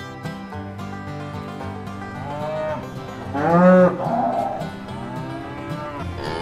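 Cattle mooing several times, the loudest and longest moo about three and a half seconds in, over background music.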